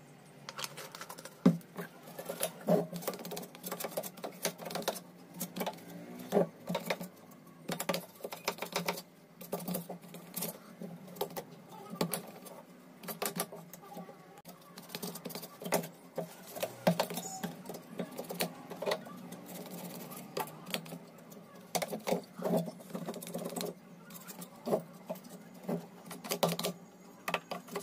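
Brush scrubbing an inverter circuit board wet with cleaning solvent, in quick irregular scratchy strokes, to clear grime from the charging section.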